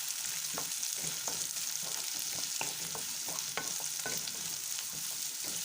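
Sliced onion, garlic, ginger and green chilli sizzling in hot oil in a pan as they are stirred, with a steady hiss and frequent short clicks of the spoon against the pan.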